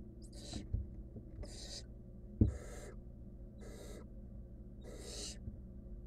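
Barn owl nestlings giving their hissing, snore-like begging calls, short and about one a second, five in all. A dull knock about halfway through is the loudest sound.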